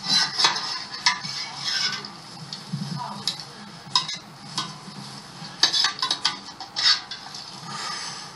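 Metal kitchen utensils clinking and scraping against a cooking pot and serving plates as food is lifted out and dished up: a run of irregular sharp clinks.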